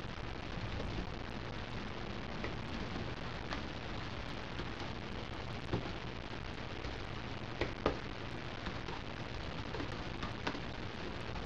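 Typing on a laptop keyboard: a continuous quick patter of soft key clicks, with a few louder keystrokes standing out now and then.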